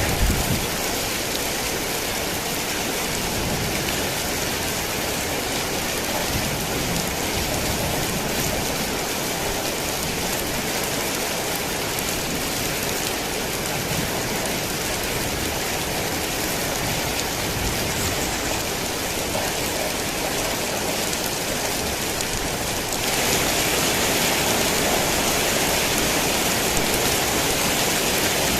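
Heavy rain falling steadily, a dense, even hiss of drops. About 23 seconds in it abruptly turns louder and brighter.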